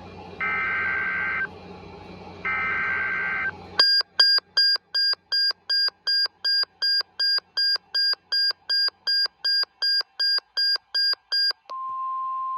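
NOAA Weather Radio alert on a Cobra CWR200 receiver: the last two one-second bursts of the warbling SAME digital header, then about eight seconds of rapid electronic beeping at roughly two and a half beeps a second, then the steady 1050 Hz warning alarm tone, which signals a warning is about to be read.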